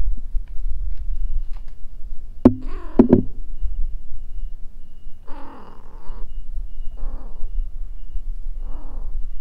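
A crow cawing several times: a loud pair of harsh calls about two and a half seconds in, then three rougher caws spaced a little under two seconds apart. A low steady rumble runs underneath.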